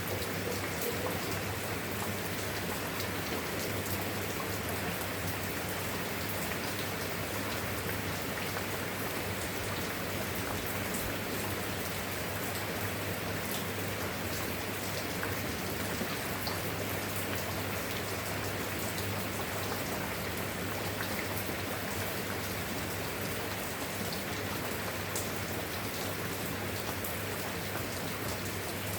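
Steady rain falling on surfaces, an even hiss with many small drop ticks and no thunder.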